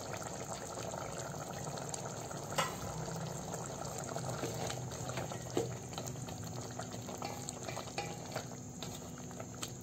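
Chicken curry simmering in an open pan: a steady bubbling with fine crackle and a couple of brief pops.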